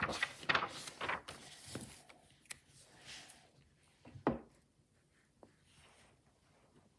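Sheet of paper being handled and laid over a book cover: several quick rubbing, rustling strokes in the first two seconds, then a single knock about four seconds in, and faint handling after.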